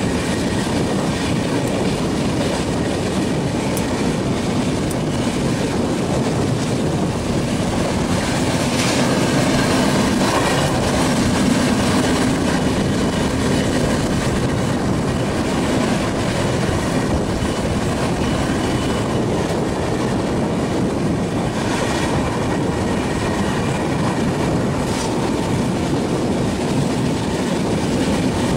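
Passenger express train running at speed, heard from the side of a coach: a steady rush of wheels on rail and air streaming past, with clickety-clack over rail joints. It swells a little for a few seconds about a third of the way in.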